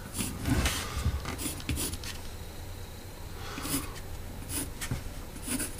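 Pencil scratching on a block of ash wood as a spoon outline is drawn, in short, irregular strokes.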